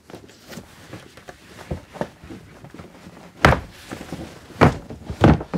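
Light rustling and small clicks, then three loud dull knocks in the second half as the dinette table top and seat cushions are moved and set down while the dinette is turned into a bed.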